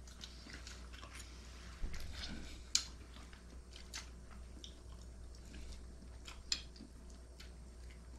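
Quiet eating sounds at a meal: chewing, with a few short, sharp clicks and taps scattered through, the loudest about three seconds in, over a low steady hum.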